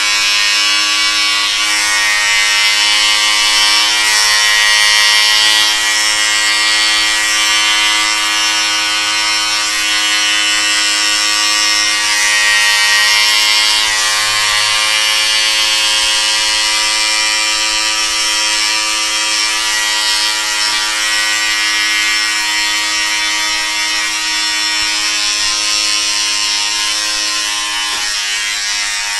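Electric hair clipper running and cutting hair: a steady motor hum with a hiss from the blades that swells and fades as they pass through the hair.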